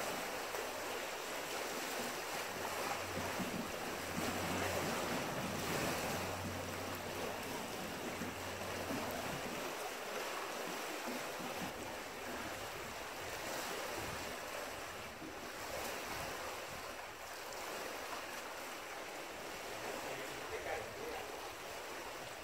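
Lake waves lapping and splashing against riprap rocks, with wind buffeting the microphone.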